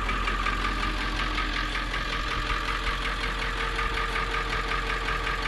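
Shuttle bus engine idling steadily with an even, rapid pulse.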